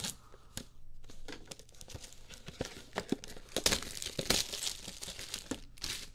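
Plastic shrink-wrap being torn and crinkled off a trading-card box, a run of crackling rustles that is loudest a little past the middle.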